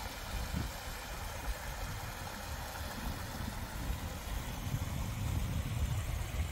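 Steady rush of flowing mountain water, with an uneven low rumble of wind on the microphone.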